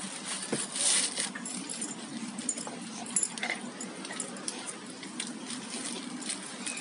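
Rottweiler taking food from a hand at close range: scattered small clicks and mouth noises, with a louder burst of noise about a second in.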